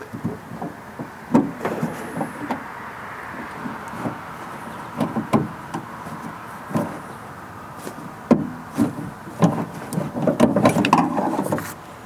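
Irregular clicks, taps and knocks of pliers and the metal door-handle rod against the latch's plastic clip and the sheet-metal inside a Honda Odyssey front door. A busier run of clatter comes near the end.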